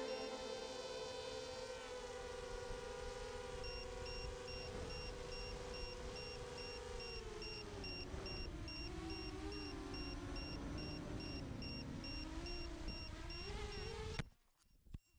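250-size quadcopter's electric motors and propellers whining, the pitch wavering up and down with the throttle, over a rushing air noise. A faint high beep repeats about twice a second from about four seconds in. The sound cuts off about a second before the end.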